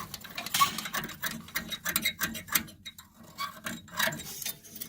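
A plastic fork scraping against the metal rod of a furnace flame sensor, scrubbing off residue: a quick, irregular run of clicks and scratches.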